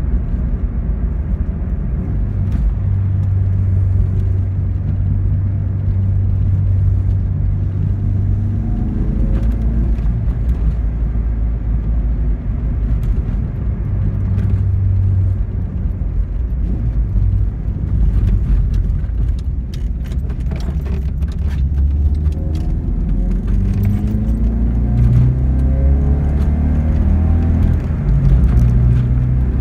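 1992 Alfa Romeo 33 1.3's flat-four boxer engine, running on freshly fitted spark plugs, heard from inside the cabin while driving: a steady low drone, then rising in pitch again and again as the car accelerates through the gears in the last third. A few light clicks about two-thirds through.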